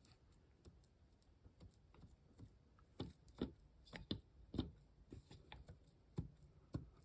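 Faint, irregular metal clicks and light knocks from a Suzuki DR750's piston and connecting rod being rocked by hand, up and down and sideways, to feel for play in the rod bearings. The louder knocks fall between about three and five seconds in, with one more a little after six seconds.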